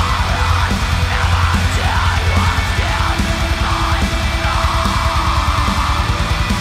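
Melodic black metal playing: rapid kick drumming and distorted guitars under a harsh screamed vocal that ends about six seconds in.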